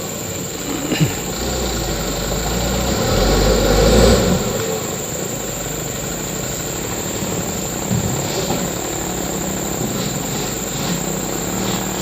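Mitsubishi Canter truck's engine running steadily, swelling louder about three to four seconds in, with a few short knocks.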